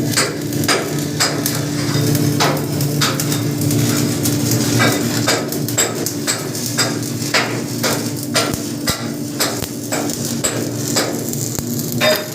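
Electric arc welding crackling, with sharp irregular cracks and clicks over a steady low hum.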